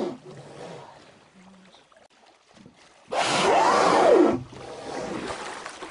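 Humpback whale blowing at the surface about three seconds in: a loud rush of breath about a second long, with a wheezy whistle that rises and then falls in pitch.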